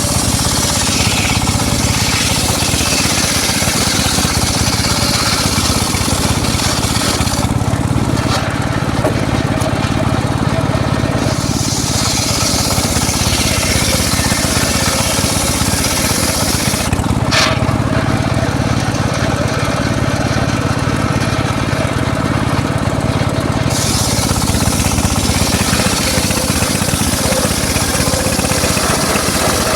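Homemade circular saw running steadily while its blade cuts teak wood in long passes, the cutting hiss stopping briefly between cuts. A sharp snap about two-thirds of the way through.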